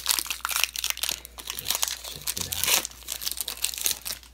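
Foil wrapper of a football card pack crinkling and tearing as it is pulled open by hand, with a rapid run of sharp crackles. The crinkling stops at the very end.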